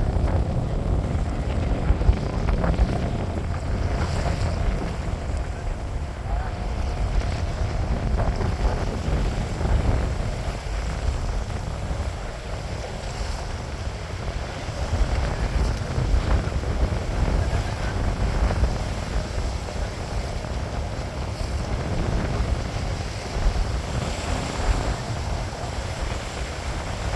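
Wind buffeting the microphone over the rushing of sea water around a yacht under way, in gusts that rise and fall throughout.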